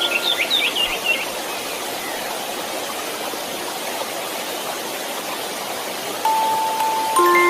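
Steady white noise hiss for baby sleep, with birds chirping in the first second and soft lullaby chime notes entering near the end.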